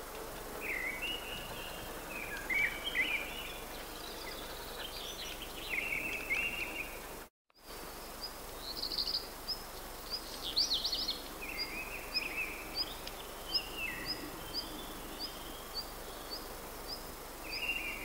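Wild songbirds singing: short warbling phrases from more than one bird, and from about halfway a high thin note repeated steadily, a little under twice a second. The sound cuts out completely for a moment just before halfway.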